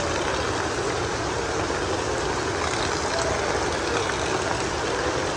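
Heavy rain falling, a steady dense hiss of drops.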